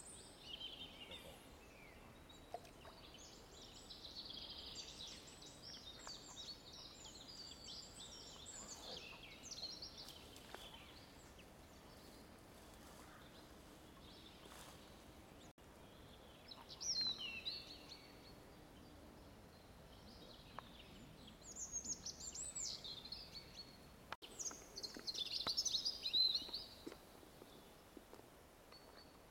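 Songbirds singing in phrases of quick high chirps, several seconds apart, over a faint steady background hiss; the loudest song comes near the end.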